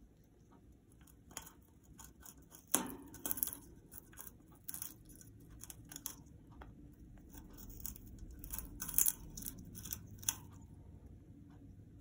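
Congo African grey parrot chewing and splintering a soft wooden perch with her beak: irregular crunches and sharp clicks, the loudest a little under three seconds in and again about nine seconds in, quieter at the start and end.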